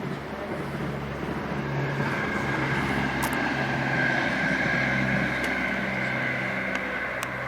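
An engine hum passing by: it swells to its loudest about halfway through, then fades.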